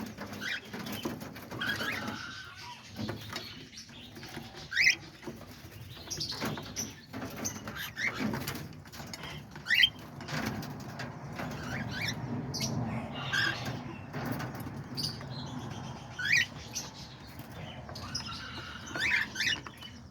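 Cockatiels giving short, sharp chirping calls scattered throughout, with wings fluttering, over a steady low background rumble.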